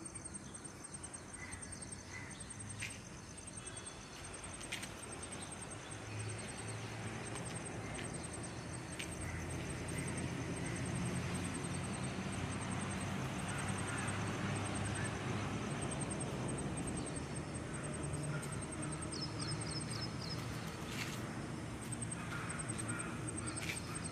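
Outdoor background noise: short bursts of high-pitched chirping repeat every second or so over a low steady hum, which gets louder about ten seconds in.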